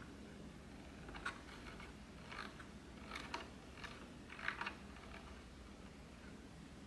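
Brightness dial on a Neewer RGB660 LED light panel being turned down, its detents giving faint runs of small clicks for a few seconds.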